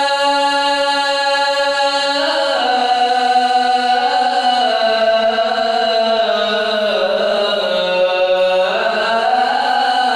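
A man's voice singing the adhan, the Islamic call to prayer, in one unbroken breath. He holds a long steady note, then about two seconds in moves into a slow ornamented line that sinks in pitch and rises again near the end.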